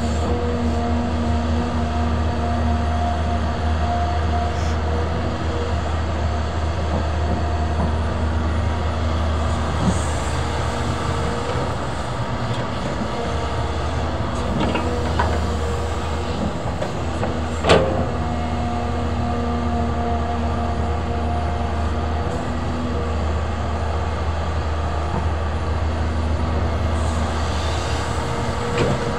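Caterpillar 320D excavator's diesel engine running under load while digging and loading, a steady low drone. Twice a higher steady whine comes in for several seconds, and there is a single sharp knock a little past halfway.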